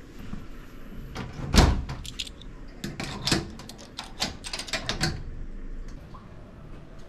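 A steel shoe locker door shuts with a bang about one and a half seconds in. A run of metallic clicks and rattles follows as a combination padlock is handled on the door's hasp and snapped shut.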